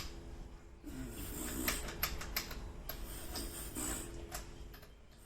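Irregular light clicks and short scraping sounds of small screws and plastic parts being handled and worked with hand tools on a radio-control car chassis.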